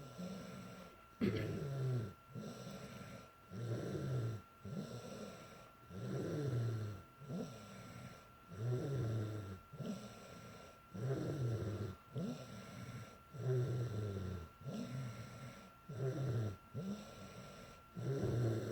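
A girl snoring in her sleep, one snore on each breath about every two and a half seconds, while she is sick with a cold.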